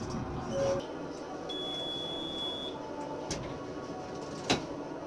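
A single high electronic beep lasting about a second over a steady low background hum, followed by a few sharp clicks near the end.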